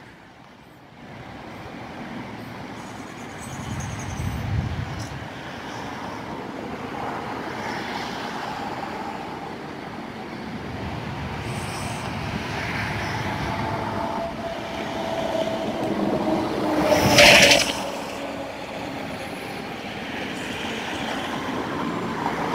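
Outdoor road traffic noise, steady, with one vehicle passing close and growing louder to a peak about seventeen seconds in, then fading.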